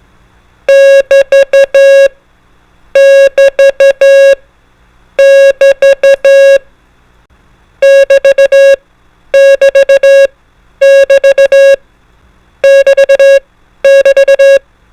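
Morse code beep tone keying the BT prosign, the 'double dash' break or pause sign (dah-di-di-di-dah), eight times over: three times slowly, then five times faster.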